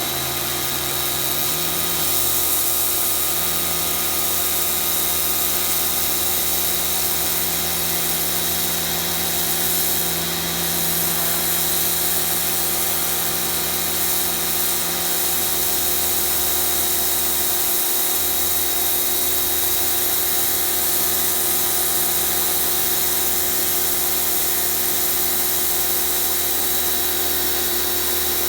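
HGTV Home 1750 PSI pressure washer running steadily: a motor hum and whine under the hiss of water from its Turbo Lance rotating nozzle spraying a concrete sidewalk.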